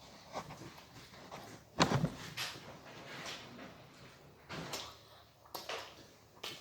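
A series of irregular knocks and clatters, like things being handled and set down, with one loudest knock about two seconds in.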